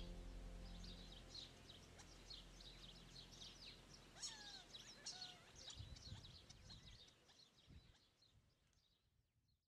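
Faint birdsong: many quick chirps with a few short down-slurred whistles, fading out to silence near the end.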